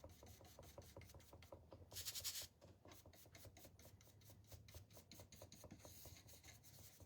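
Faint, quick back-and-forth rubbing strokes as dark antiquing wax is worked onto a sanded wooden cutting board, with one brief louder rasping stroke about two seconds in.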